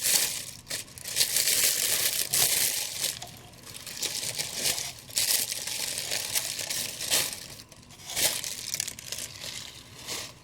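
Packing wrap being pulled off a boxed collectible statue, crinkling in irregular bursts of rustling, some sharper than others.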